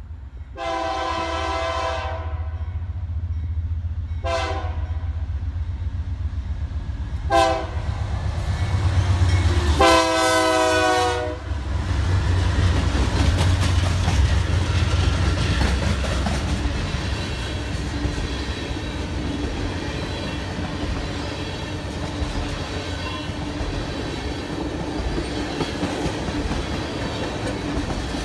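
A freight train's diesel locomotive air horn sounds four blasts for a grade crossing: a long blast, two short ones and a final long one. Under them is the low rumble of the two BNSF and NS diesel locomotives passing close by. The ethanol tank cars then roll past with their wheels clicking over the rail joints.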